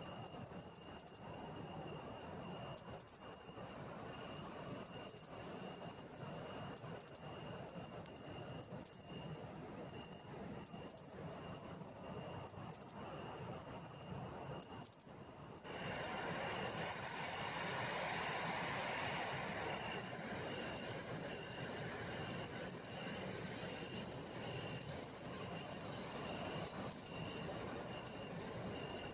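Matsumushi (pine cricket, Xenogryllus marmoratus) singing its "chin-chiro-rin" song: short, high, clear chirps in quick groups of two or three, repeating about every second, over a faint background hiss that grows louder about halfway through.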